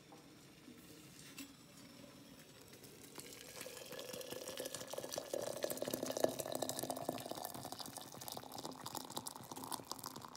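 Hot water from a stainless steel kettle pouring into a ceramic teapot, building from about three seconds in, the pitch of the filling rising as the pot fills.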